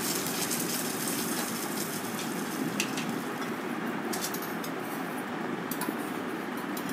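Pan of tomato gravy with fried potatoes and soya nuggets cooking on the stove with water just added, giving a steady sizzling, bubbling hiss. A few light clicks come through it.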